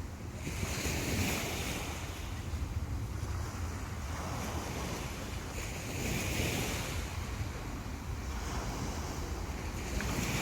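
Sea waves breaking and washing onto the beach, the surf swelling about every four to five seconds, with wind rumbling on the microphone.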